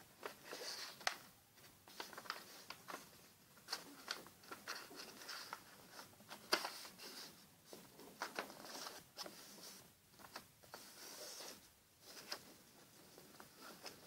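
A sheet of paper being folded and creased by hand: irregular rustles, crinkles and sharp little snaps as fingers press and slide along the folds.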